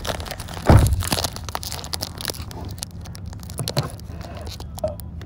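Pokémon trading-card booster pack wrapper crinkling and being torn open by hand, a run of crackles with the loudest rip about a second in, over a steady low car rumble.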